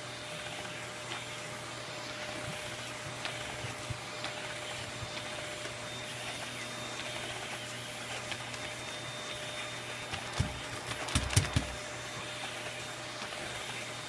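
Vacuum cleaner running steadily with an even hiss and hum. About ten seconds in, a short cluster of sharp knocks rises above it.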